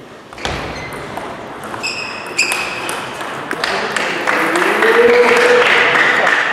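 Table tennis rally: sharp ball strikes and bounces in the first two and a half seconds, two of them ringing with a clear ping. About four seconds in comes a loud shout rising in pitch, the player's cheer on winning the point.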